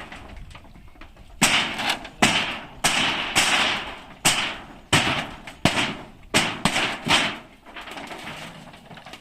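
Hammer knocking on corrugated metal roofing sheets to get the nails out: about ten sharp strikes, each a little under a second apart, each with a short rattling ring from the sheet metal.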